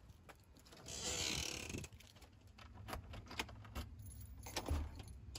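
A bunch of keys jangling for about a second, followed by a string of light clicks and knocks as a front door with a round metal knob is unlocked and opened.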